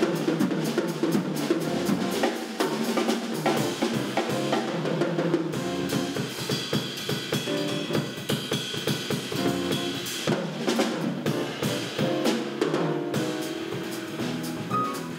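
Live jazz trio playing: a Tama drum kit plays a busy, irregular pattern of snare, bass-drum and cymbal strokes, with the trio's other instruments sounding pitched notes underneath.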